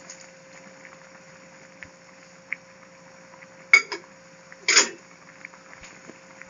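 Pot of stew simmering quietly, with two sharp clinks of a metal utensil against the pot about a second apart near the middle, and a few small ticks.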